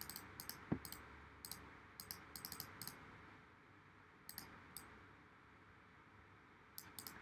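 Faint computer mouse clicks in short clusters, with a single dull thump about a second in, over a low steady hiss.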